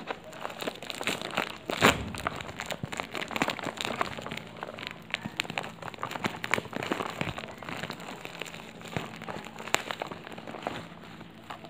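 Plastic bubble-wrap packaging crinkling and crackling as a boxed device is pulled out of it and handled, with irregular crackles and a sharper crack about two seconds in.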